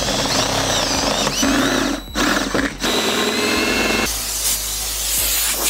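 Cordless drill boring holes through a Jeep Wrangler JL's sheet-metal rear body panel. The bit runs under load, stops briefly about two seconds in, then runs again.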